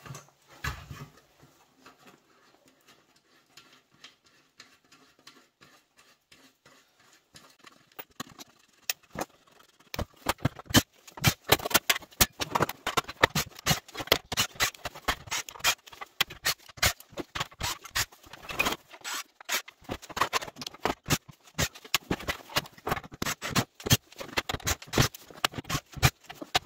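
Sharp, irregular clicking and snapping. A few faint clicks come first, then a dense run starts about ten seconds in.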